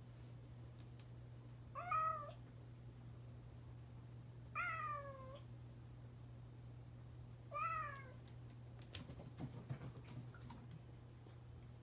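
Domestic cat meowing three times, a few seconds apart, each meow under a second long and falling in pitch at its end. A few faint clicks follow near the end, over a steady low hum.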